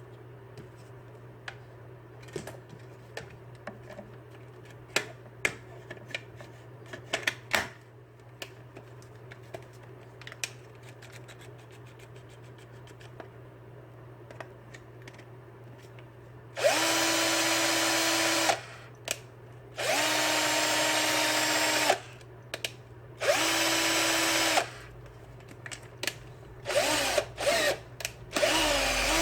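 Cordless drill converted to run on 127 V AC mains, tested: after some handling clicks and knocks over a low steady hum, the motor spins up and runs for about two seconds three times, then gives several short trigger blips near the end.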